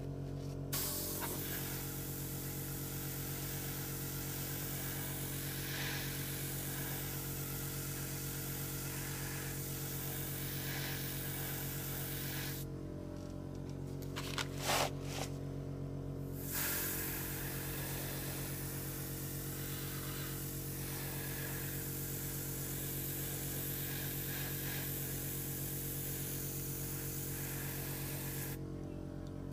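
Airbrush spraying: a fine, steady hiss of air and paint that stops for about four seconds midway, with a few clicks in the pause, then starts again and runs on until near the end. Under it, a steady low hum.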